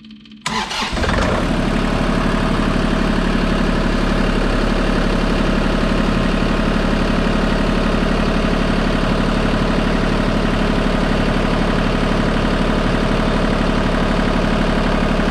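Kubota KX033-4 mini excavator's three-cylinder diesel engine starting about half a second in and settling at once into a steady idle. It starts readily on a freshly changed fuel filter that was filled with fuel beforehand, the start-up check for air in the fuel system.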